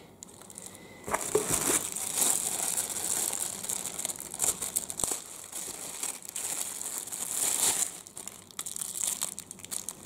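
Clear plastic bag crinkling and rustling as a small bracket is pulled out of it, starting about a second in and easing off near the end.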